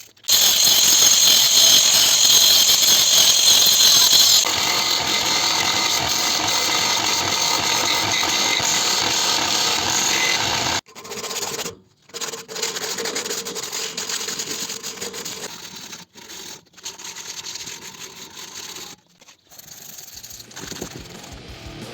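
Power tools working steel: grinding and sanding noise on the knife blank, heard in a series of short clips cut together with abrupt breaks between them. The loudest is a harsh, high grinding hiss in the first few seconds.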